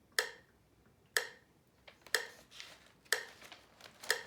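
A steady percussive beat for chanting along to: sharp clicks about once a second, each with a short ringing tail, with fainter ticks in between.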